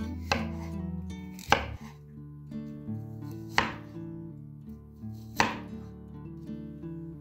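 Kitchen knife chopping a peeled raw potato into cubes on a wooden cutting board: four sharp knocks about two seconds apart, with guitar music underneath.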